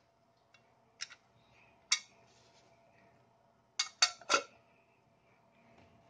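Light metallic clicks and clinks of a duralumin flap cover being handled and fitted onto the aluminium face plate of a homemade concrete vacuum inlet: two single clicks, then a quick cluster of three about four seconds in.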